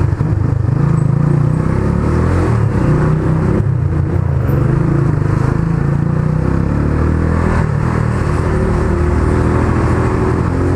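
Rusi Mojo 200 motorcycle engine running steadily as the bike is ridden at low speed, heard from the rider's position.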